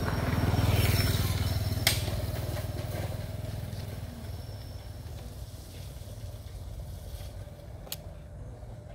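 Low engine rumble of a passing motor vehicle, loudest about a second in and then fading away. Two sharp clicks come about two seconds in and again near the end.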